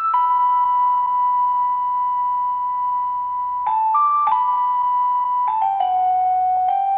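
Sampled Optigan organ sound playing slow, held notes through a reverb, the OrilRiver plugin: one note held for about three and a half seconds, then several shorter notes settling lower.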